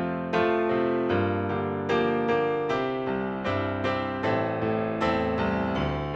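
Solo digital piano playing a slow piece of chords, a new chord struck roughly every second and each ringing and fading until the next.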